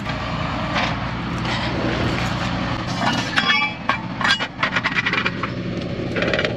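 Tow truck engine running steadily, with a run of sharp metal clanks and rattles, some ringing briefly, about three to five seconds in as steel wheel-lift parts are handled.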